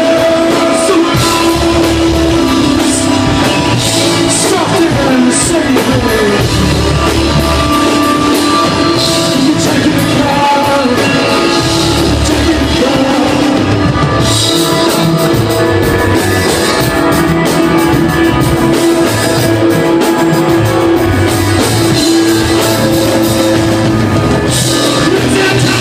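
Live rock band playing: sustained, sliding electric guitar lines over bass guitar and a drum kit, loud and unbroken.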